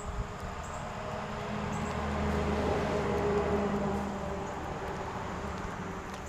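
A vehicle passing on the nearby road: a broad traffic noise that grows louder toward the middle and then fades away.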